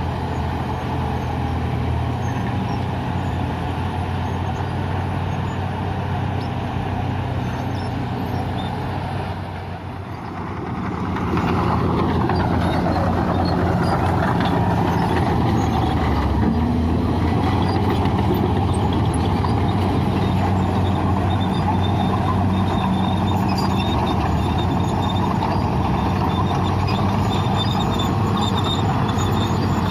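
Bulldozer's heavy diesel engine running under load. It drops briefly about ten seconds in, then comes back louder with a rising pitch and holds steady.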